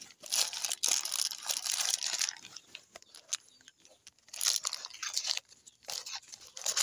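Plastic bag crinkling and tearing in several spells, the longest in the first two seconds, as a new motorcycle cam chain tensioner is unwrapped.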